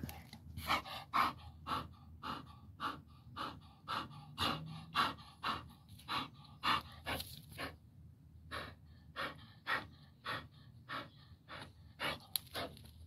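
A dog panting in short, even breaths, about two a second.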